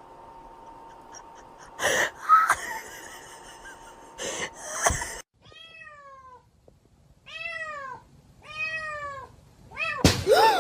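Domestic cat meowing: three separate calls in the second half, each rising then falling in pitch, and a louder one near the end. In the first half there are a few loud, sudden noises.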